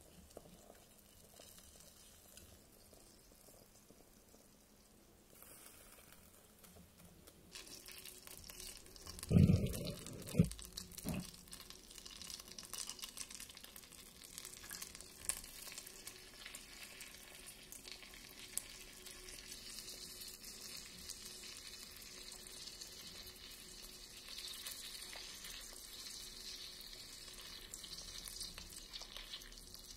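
Butter sauce sizzling and crackling around a swordfish fillet in a miniature frying pan, faint at first and livelier from about seven seconds in, with the butter spooned over the fish. A loud dull thump a little over nine seconds in, and a sharper knock a second later.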